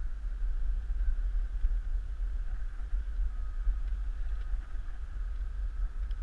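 Wind buffeting the microphone of a camera riding along on a moving bicycle: a steady, unevenly pulsing low rumble, with a faint thin whine coming in about halfway.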